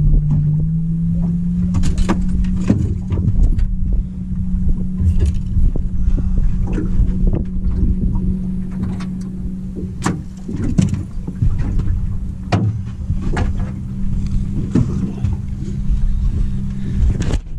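Boat motor running with a steady hum that rises slightly in pitch in the first second and then holds, with irregular knocks and clicks over it.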